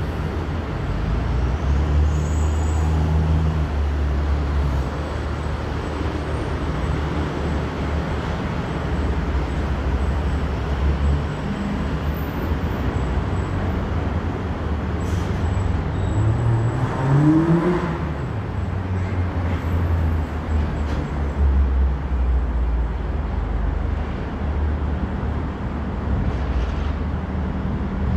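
Steady road traffic rumble, with one vehicle engine note rising and then falling in pitch about seventeen seconds in.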